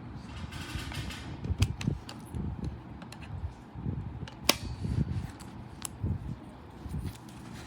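Handling noise: irregular soft knocks with a few sharp clicks.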